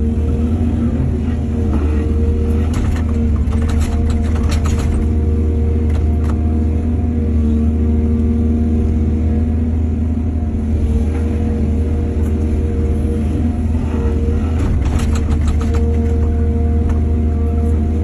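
Heavy diesel machinery engine running steadily at a loud, even level. Two stretches of sharp clattering come through it, a few seconds in and again near the end.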